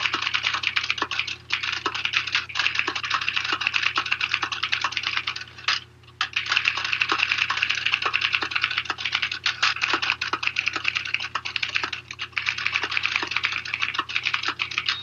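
Manual typewriter typed fast and continuously, a rapid run of key strikes with a short break about six seconds in.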